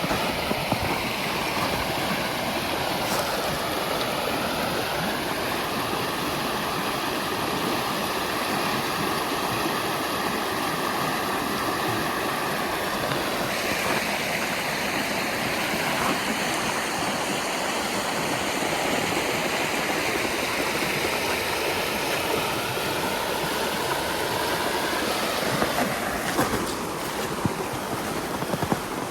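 Steady rushing of flowing river water, an even hiss with no break.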